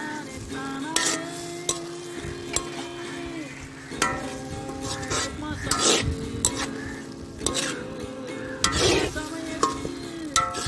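A perforated metal ladle scraping and clinking against a black wok-style kadai in uneven strokes as onions, tomatoes and fresh mint and coriander leaves are stirred and fried, with a steady sizzle under the strokes; the loudest scrape comes about nine seconds in.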